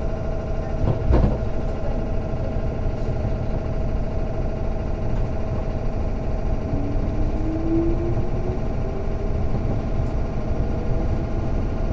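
Running sound of a JR East 205 series 600 subseries electric train: a steady hum with a constant tone and a thump about a second in. From about seven seconds in, a motor whine rises steadily in pitch.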